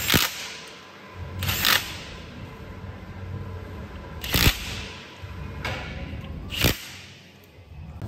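Four short, sharp bursts, one to two and a half seconds apart, from a cordless driver working the bolts on the head flange of a hydraulic cylinder, over a low steady hum.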